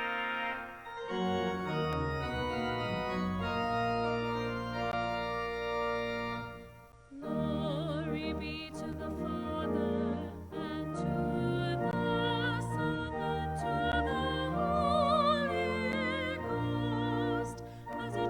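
Church organ playing slow, sustained chords. After a short break about seven seconds in, the organ resumes and a solo singer with a strong vibrato joins it, singing a sung response of the service.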